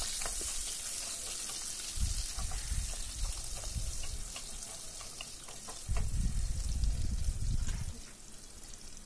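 Sliced onions sizzling in hot ghee and oil with whole spices in a pan, stirred with a spoon that clicks and scrapes against the pan now and then. There are two stretches of low rumbling, and the sizzle thins out toward the end.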